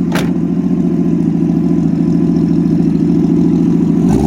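Dodge's Chrysler slant-six engine idling steadily, running with no coolant in it. A single sharp click comes right at the start.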